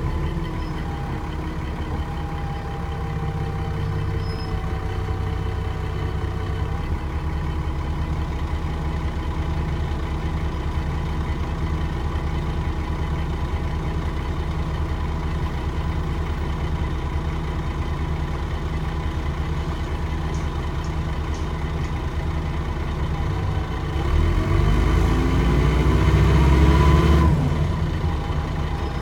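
Dennis Trident 2 double-decker bus's diesel engine running steadily at low revs, heard from inside the passenger saloon. About 24 seconds in, the engine pulls harder: its pitch rises and it grows louder for about three seconds, then drops back.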